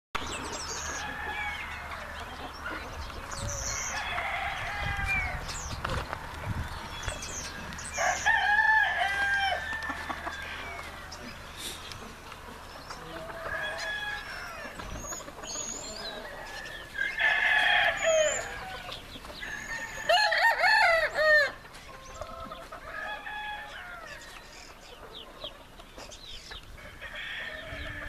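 A flock of chickens: roosters crowing again and again, with hens clucking between the crows. The loudest crows come about eight, seventeen and twenty seconds in.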